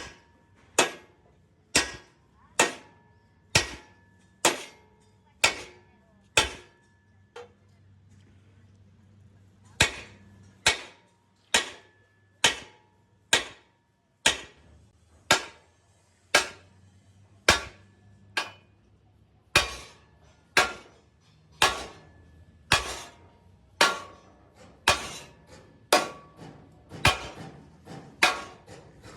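Hammer blows on metal, about one a second, each with a short metallic ring. They stop for about two seconds a quarter of the way in, then resume and come faster near the end.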